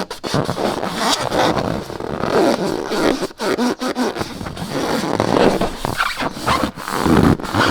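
Glossy slime being squished and stretched by hand: irregular wet squelches with sticky crackling and small pops.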